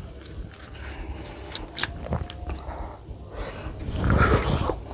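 Close-up eating sounds: small clicks and taps of fingers handling a piece of bhatura in chole, then a louder wet bite and chewing near the end.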